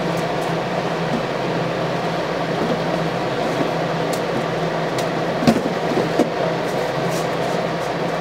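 Food dehydrator's fan running with a steady hum partway through a drying run, while its plastic trays are slid out and moved around; a couple of sharp plastic clacks from the trays, about five and a half and six seconds in.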